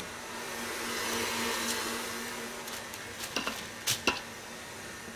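KitchenAid Heavy Duty stand mixer running at high speed with its wire whisk, a steady motor hum and whirr as it whips egg whites and sugar into a firm meringue. A few sharp clicks come about three and a half to four seconds in.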